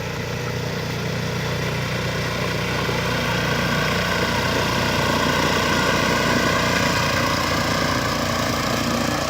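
A small engine running steadily, its pitch wavering slightly and growing gradually louder.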